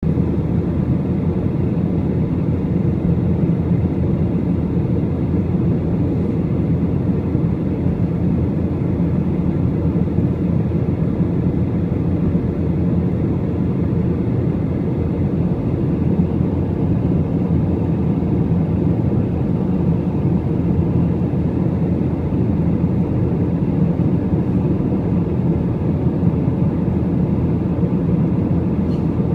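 Airliner cabin noise in flight: a steady, loud drone of engines and airflow, heaviest in the low end.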